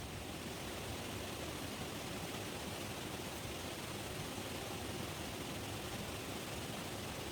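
A steady, even rushing hiss with no distinct sounds standing out.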